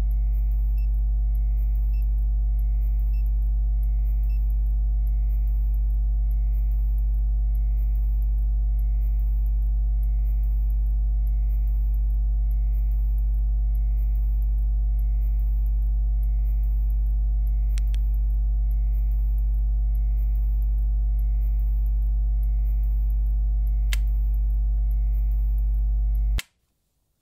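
A steady low electrical hum, one deep buzzing tone with its overtones, that cuts off suddenly near the end. Two faint clicks come in the latter half.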